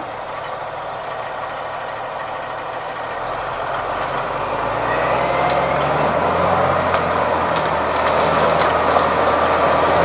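Amkodor 2661-01 forwarder's diesel engine running and growing louder as the loaded machine drives closer, with a rising whine about four seconds in. In the last few seconds come a run of sharp cracks, branches snapping under its wheels.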